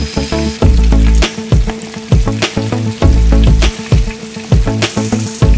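Background music with a heavy bass beat, over the steady sizzle of cornstarch-coated lobster pieces deep-frying in a wok of hot oil.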